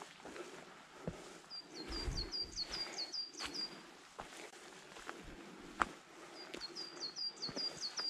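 A small songbird singing twice, each time a quick run of about ten high, hooked notes lasting about two seconds, against outdoor background noise. Scattered footstep knocks run through it, the loudest a little before six seconds in.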